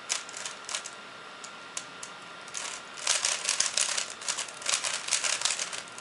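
3x3 Rubik's cube being turned by hand, its plastic layers clicking and clattering: a few single turns at first, then a fast run of turns through the second half.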